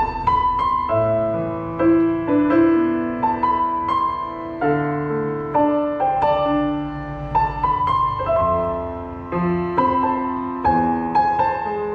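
Roland HP508 digital piano playing a melodic passage in a piano voice: a melody over lower held notes, struck at about two to three notes a second, each note ringing and fading.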